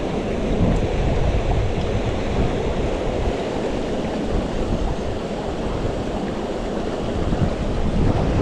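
Mountain stream rushing steadily over rocks, with a fluttering low rumble from wind on the microphone.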